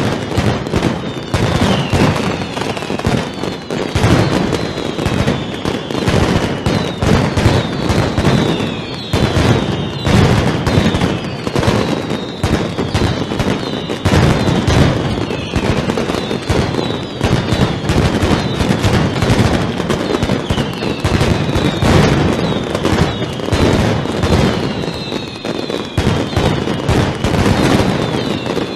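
Mascletà barrage: masclet firecrackers strung on cords exploding in a rapid, unbroken volley, like machine-gun fire, with repeated falling whistles over the bangs.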